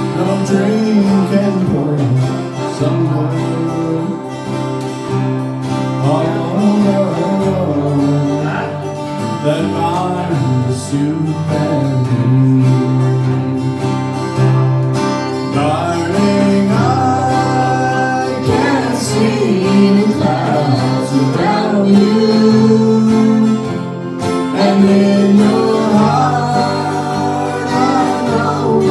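Live acoustic band: a woman singing lead over two strummed acoustic guitars and a mandolin.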